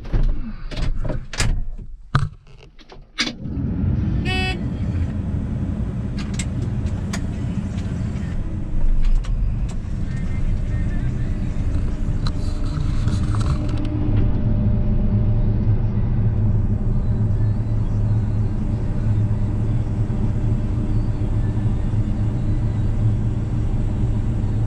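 A few knocks and clunks, then from about three seconds in a combine harvester running with a steady, even drone as corn shelling resumes.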